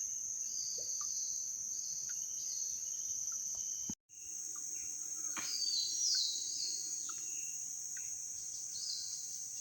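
Steady, high-pitched drone of forest insects, with short falling chirps repeating just below it. The sound drops out briefly about four seconds in.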